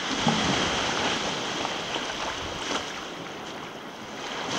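Small waves washing in and lake water sloshing in the shallows, louder for the first second and a half and then quieter, with a few light splashes.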